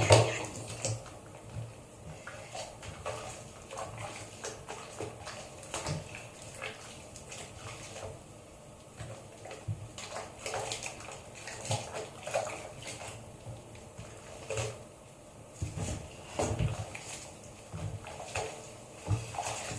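A kitten being bathed: small irregular splashes and wet rubbing with scattered light knocks.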